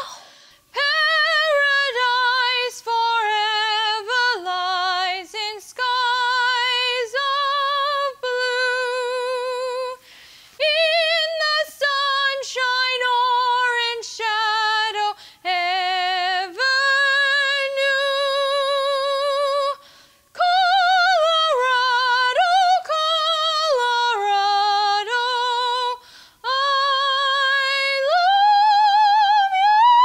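A woman singing unaccompanied in a high voice with a wide, even vibrato, in a string of held notes broken by short breaths. Near the end she slides up to a long, high held note.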